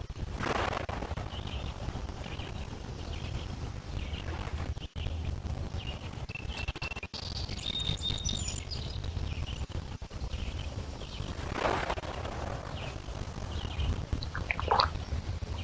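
Small lake waves lapping and splashing against shoreline stones, with a splash about half a second in and another near 12 s, over a steady low rumble. Birds chirp repeatedly throughout, with a busier song phrase in the middle.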